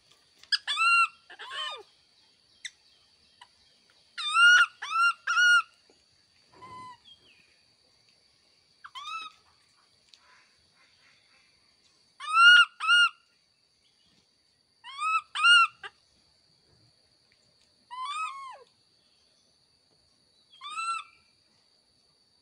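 Baby monkey giving short, high coo calls that rise and fall in pitch, singly or in quick runs of two to four, every few seconds.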